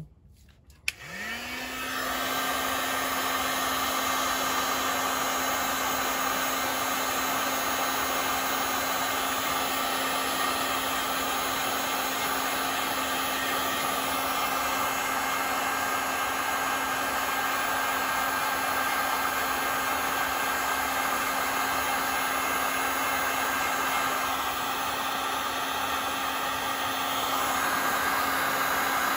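Heat gun switched on about a second in, its motor spinning up and then blowing a steady rush of hot air to shrink heat-shrink tubing over crimped copper cable lugs.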